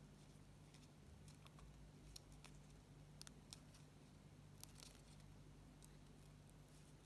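Near silence, with faint scattered ticks and rustles of a needle and thread being stitched through satin ribbon, over a steady low hum.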